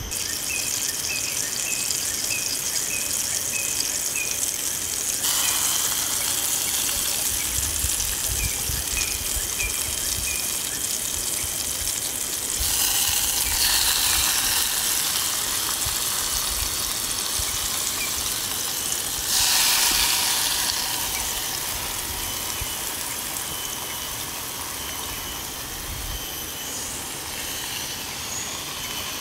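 Steady outdoor background hiss that shifts abruptly in level several times. A run of short, high, repeated chirps comes in the first few seconds and again around eight seconds in.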